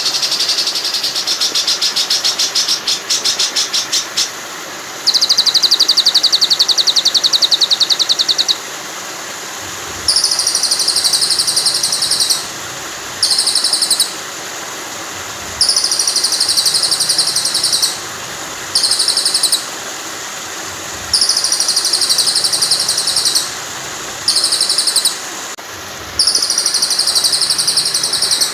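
Songbird calls in rapid buzzy rattling trills, repeated as regular bursts of about two seconds alternating with shorter ones, over a steady hiss of running water. It is a looped song-training mix for white-rumped shama.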